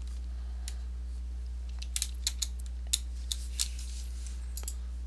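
Irregular, sharp clicks from working a computer, about ten of them, some in quick pairs, over a steady low electrical hum.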